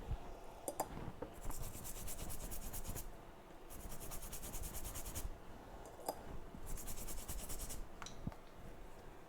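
A metal reballing stencil being scrubbed clean: three spells of quick, rapid back-and-forth scratching strokes, with a few light clicks between them.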